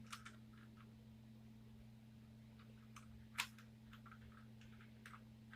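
Near silence: room tone with a steady low hum and a few faint clicks, one sharper click about three and a half seconds in.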